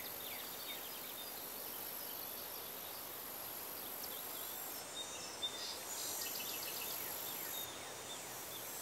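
Outdoor nature ambience: a steady hiss with faint, scattered bird chirps and insect-like ticking, including a brief run of rapid ticks a little past the middle.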